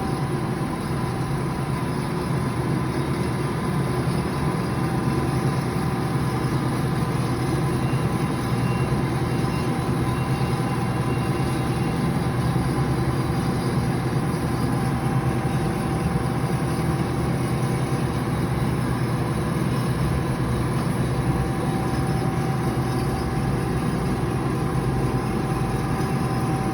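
HEM H160LA-DC horizontal band saw running steadily, a continuous machine hum with a few steady tones, while its blade is being lowered.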